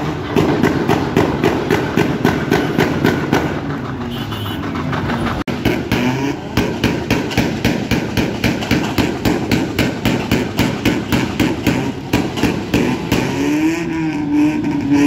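Car engine revving hard in repeated pulses, about two or three a second, its pitch rising and falling near the end.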